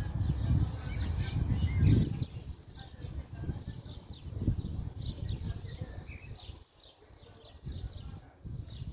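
Small birds chirping over and over in short, falling chirps, over an uneven low rumble that drops away briefly about two-thirds of the way through.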